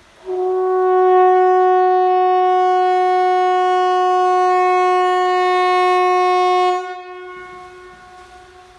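Swedish Hesa Fredrik outdoor warning siren sounding its test signal: a single steady, level tone held for about six and a half seconds, starting a moment in. It then cuts off, and its echo fades over the next two seconds.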